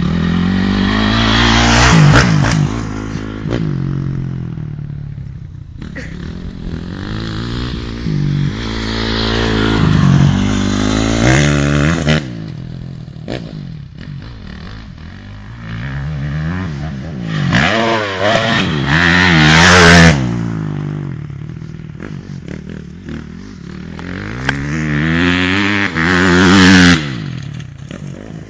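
Honda 250cc four-stroke motocross bike riding a dirt track, its engine revving up and shifting through the gears and then dropping back, four times over. The rev-ups near the middle and the end are the loudest.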